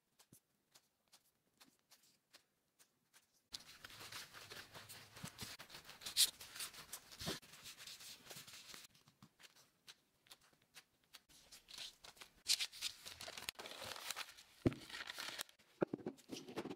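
Disposable plastic gloves rustling and crinkling as hands roll and shape soft bread dough on a wooden board, starting a few seconds in, with sharp little clicks. Near the end, a few knocks from a plastic food container and its lid being handled.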